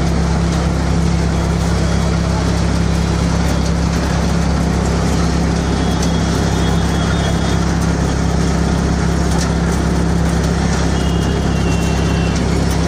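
An engine running steadily, a deep even hum that does not change.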